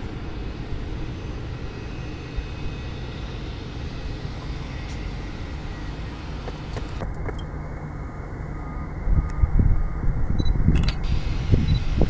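Steady low engine rumble, which grows louder and more uneven from about nine seconds in.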